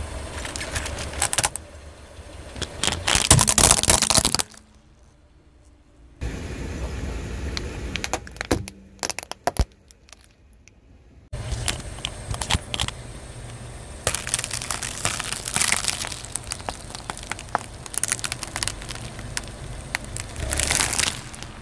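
A car tyre rolling slowly over objects and crushing them, in several short cuts: a plastic game controller cracking and crunching under the tyre, loudest about three to four seconds in, and eggs cracking under it near the end.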